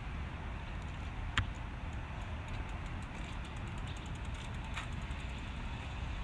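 Steady outdoor background rumble and hiss, with two sharp clicks, one about a second and a half in and one near five seconds in.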